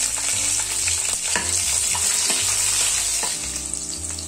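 Sliced green chillies and cumin seeds sizzling in hot oil in a kadhai, the tempering (phodni) stage, with a steady hiss and scattered sharp crackles.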